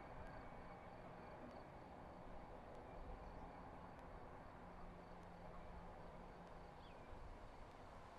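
Near silence: faint outdoor ambience with a thin steady high tone and soft ticks about once a second, with no train passing.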